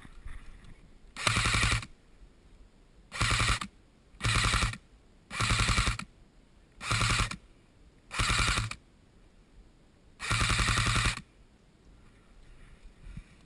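ASG MP5 airsoft electric gun firing full-auto: seven short bursts of rapid clicking shots, each half a second to a second long. The last and longest comes about ten seconds in.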